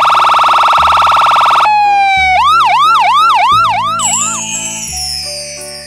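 Cartoon ambulance siren sound effect: a steady, rapidly pulsing electronic tone, then about a second in a quick repeating whoop of about three rising sweeps a second, then a falling glide that fades out. Children's background music with a bass line plays underneath.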